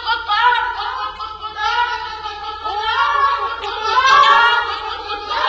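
Voices singing a melody, with notes held and gliding and no clear instrumental backing.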